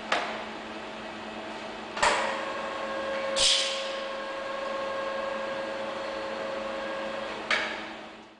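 Machinery of a robotic stud and nut welding cell: a clunk, then another clunk that starts a steady machine hum, with a short hiss of air about a second later. The hum stops with a final clunk, and the sound fades out near the end.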